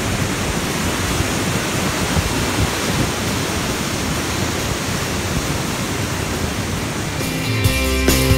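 Steady rush of white water from fast turquoise river rapids pouring through a narrow rock channel. Music comes in near the end.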